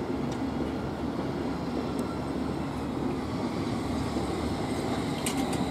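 London Underground S8 Stock train running into the platform on the Metropolitan line, a steady rumble of wheels on the track. A few sharp clicks come near the end.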